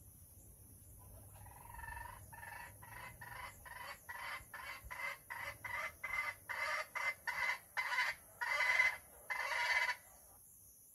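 Chicken hen cackling: a run of short clucks, about two or three a second, growing louder, ending in two longer drawn-out calls.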